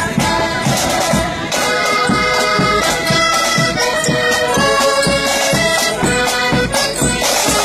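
Marching band playing a traditional tune: a sustained reed-like melody over a steady drum beat.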